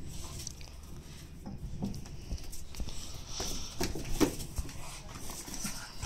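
Young dogs' paws pattering and scrabbling on paving slabs and against a window and brick wall as they jump up. There is one louder bump about four seconds in.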